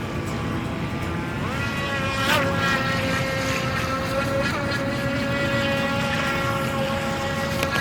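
Electric motor of a Sharkool RC speedboat whining as the boat runs on the water. The pitch rises about a second and a half in as the throttle opens, then holds steady with a brief wobble.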